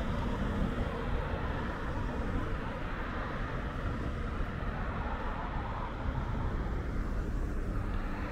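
City street ambience: a steady wash of road traffic noise with no single event standing out.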